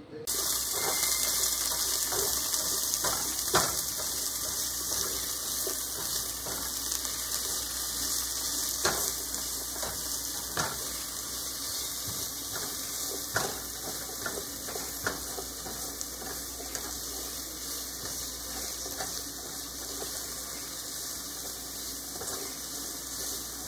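Chopped red onions sizzling in oil in a pot, a steady hiss, with a plastic spatula scraping and knocking against the pot now and then as they are stirred.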